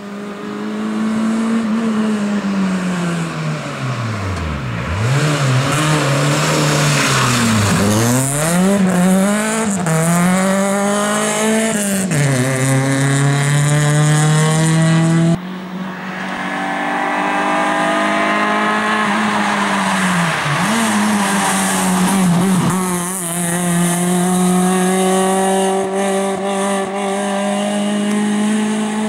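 Suzuki Swift rally car's engine driven hard on a stage, revving up through the gears and dropping sharply as it lifts off and changes down, over and over. The sound breaks suddenly about halfway through, then carries on at high revs.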